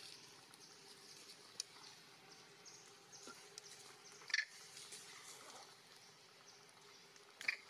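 Faint outdoor ambience with two short, high-pitched animal calls, one about four seconds in and one near the end.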